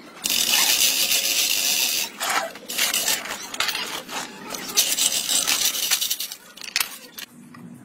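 Loaded wheeled dolly rolling and scraping over rough concrete under a heavy tractor gearbox. It is a harsh grinding rub that starts suddenly, is loudest for the first two seconds, then comes in uneven bursts.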